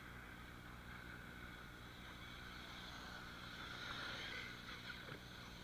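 Brushless electric motors of 1/8-scale RC cars whining as the cars race across sand. The whine grows louder about four seconds in as they pass close.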